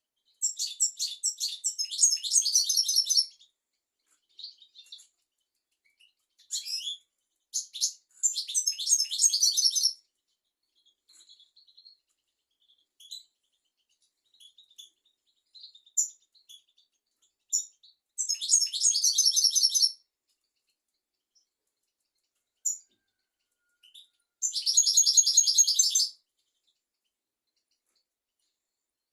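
European goldfinch singing: four or five bursts of quick, high twittering phrases, each one to three seconds long, with short pauses and scattered single notes between.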